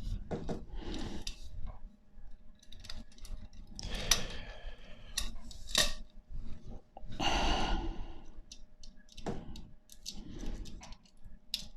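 Metal spokes of a Raleigh Chopper rear wheel clinking and scraping against each other, the hub and the rim as they are threaded in by hand during wheel lacing: scattered light clicks with a few longer scrapes.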